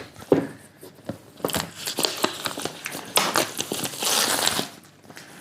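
Packaging being opened by hand: crinkling and rustling of wrapping with scattered clicks, and a longer ripping rustle about four seconds in.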